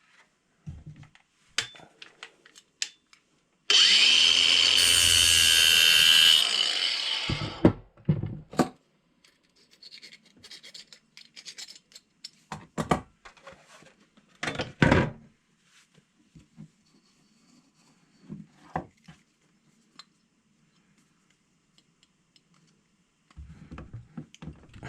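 A small power tool grinding for about three seconds with a steady whine, then winding down; afterwards scattered light clicks and knocks of small metal parts being handled.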